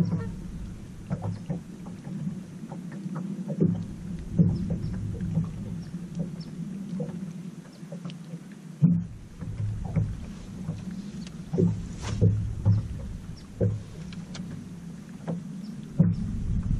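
Small waves lapping and slapping against the hull of a bass boat, with scattered short slaps over a low rumble that drops out twice.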